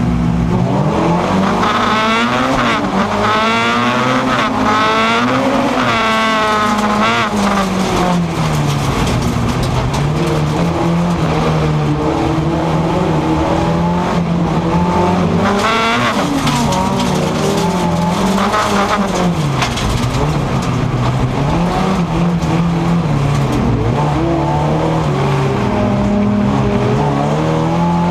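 Race car's engine heard from inside the cabin, revving hard and climbing through the gears from the start, then rising and falling again and again as it accelerates and lifts for corners.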